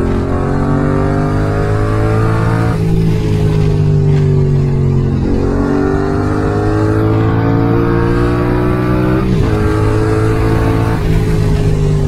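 Yamaha MT-07's parallel-twin engine breathing through a full Mivv exhaust system, pulling under throttle while riding. The pitch climbs steadily and then drops sharply three times, about 3, 5 and 9 seconds in, as it changes gear.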